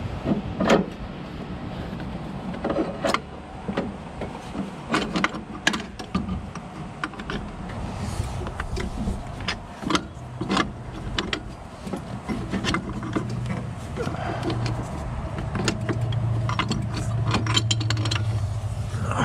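Metal parts clinking and knocking as a forklift's brake pad bracket is worked loose and pulled out by hand. A steady low hum comes in about two thirds of the way through.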